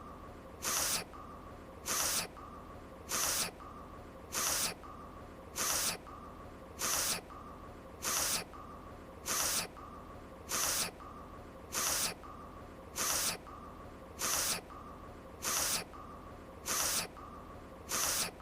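An anime character's voice-acted sniffle, a short sharp breath in through the nose, repeated on a loop about every 1.2 seconds, the same each time.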